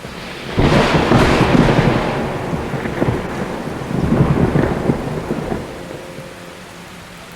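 Thunder: a sudden crack about half a second in, rolling into a rumble that swells again around four seconds and then fades, over steady rain.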